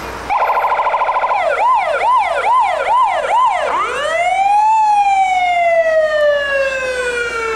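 Loud emergency-vehicle siren cycling through its tones: a very rapid warble for about a second, then a quick up-and-down yelp about twice a second, then one long wail that rises and slowly falls away near the end.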